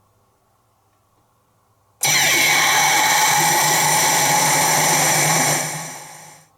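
CR Tsurikichi Sanpei pachinko machine's sound effect from its speaker: near silence, then a loud dense noise that starts suddenly about two seconds in, holds steady, and fades away near the end.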